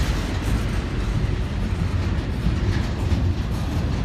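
Double-stack intermodal freight cars rolling past, a steady low rumble of wheels on rail.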